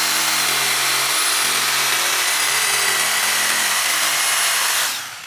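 Electric jigsaw cutting a curve through a wooden plank, running steadily at full speed, then winding down and stopping near the end.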